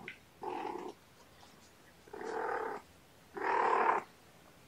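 Adult cat purring close up in three separate bursts of about half a second each, a second and a half or so apart, the last the loudest.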